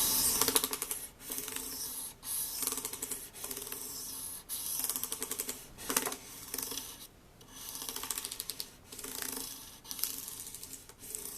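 Fine 1200-grit sandpaper rubbing back and forth across a mandolin's metal frets in a run of short, hissy strokes. This is the polishing stage after fret crowning, taking out the file marks.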